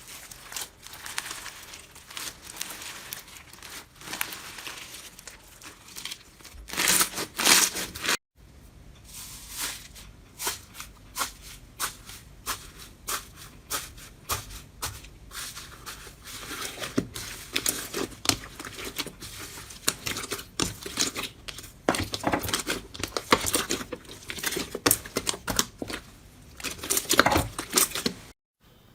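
Slime being squeezed, stretched and poked by hand: dense sticky crackling and popping clicks, with sudden breaks where clips change about 8 seconds in and near the end.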